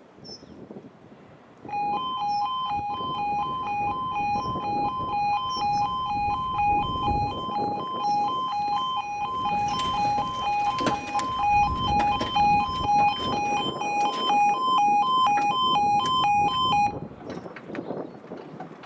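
Level-crossing E2S Appello audible warning alarm sounding a loud two-tone wail, switching between a lower and a higher note about twice a second: the warning that the barriers are lowering for an approaching train. It starts about two seconds in and cuts off suddenly about two seconds before the end, once the barriers are down, with wind on the microphone underneath.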